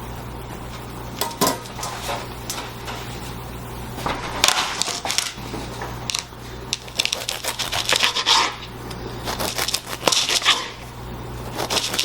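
Kitchen clatter: a knife cutting through a loaf of bread on a board, with scattered clicks and clinks of utensils over a steady low hum.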